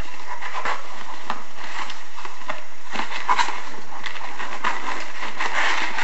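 Hands opening a shipping package and digging through its packing: irregular crackling and rustling with scattered light knocks as the cardboard and wrapping are handled.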